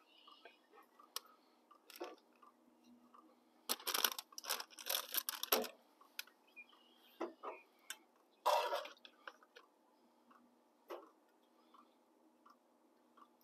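Food prep at a truck-tailgate camp kitchen: a plastic food bag crinkling in quick spells about four to six seconds in, with scattered clicks and knocks of items being handled and a louder clatter near nine seconds in.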